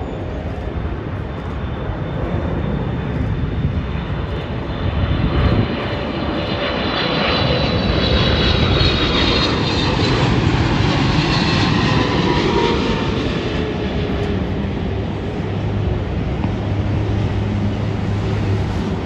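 Boeing 777-200LR on landing approach, its GE90 turbofan engines whining over a broad jet rumble as it passes by. The whine falls in pitch as the aircraft goes past, and it is loudest around the middle.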